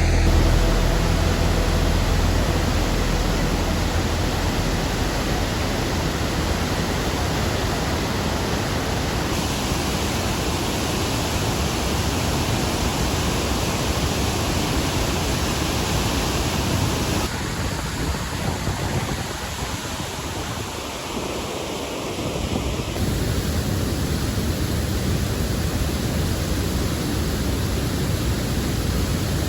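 Raging water of a waterfall rushing steadily. The noise shifts abruptly in character a few times, dipping a little in level for several seconds past the middle.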